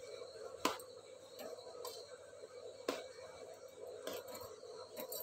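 A knife stabbing small holes into whole brinjals in a steel plate, with a few sharp clinks spread irregularly through it, over a steady faint hum.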